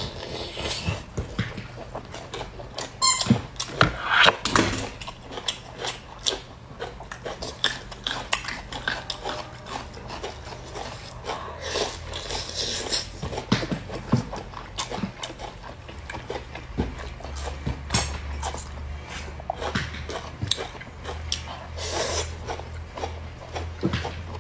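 Close-up eating sounds: chewing, lip smacks and wet mouth noises, with irregular small clicks throughout.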